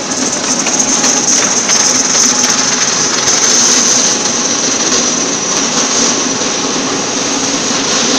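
Welding turning roll's electric lead-screw spindle drive running, its gear motor moving a roller carriage along the bed: a loud, steady mechanical running noise with a high-pitched whine and a constant light rattle of clicks.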